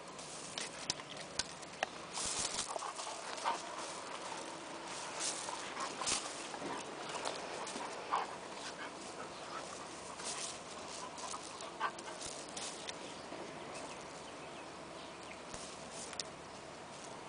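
Two dogs play-fighting on gravel: irregular crunches, scrapes and clicks as they scuffle and mouth at each other, busiest in the first half and thinning out as they settle.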